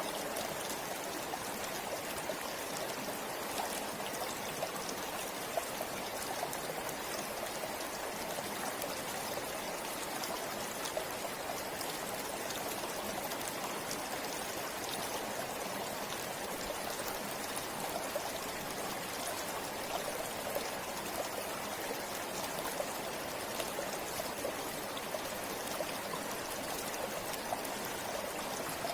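Forest river flowing steadily: a continuous rush of running water with many small splashing ticks scattered through it.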